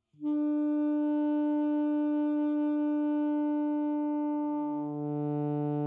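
Alto saxophone playing an overtone exercise. A low note is fingered while the octave overtone is sounded and held. About four and a half seconds in, it slurs smoothly down an octave to the fingered fundamental, without changing the embouchure.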